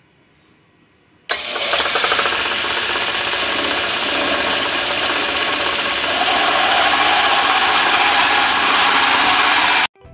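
Metal lathe running while a 3/8-inch twist drill bores into spinning brass bar stock, a loud steady cutting noise. It starts abruptly about a second in and cuts off just before the end.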